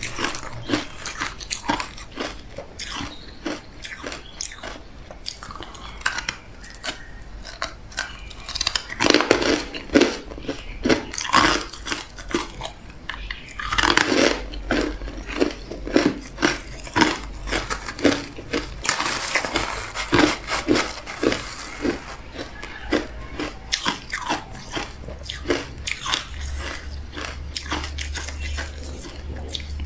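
Crushed ice being bitten and chewed: a long run of sharp, irregular crunches.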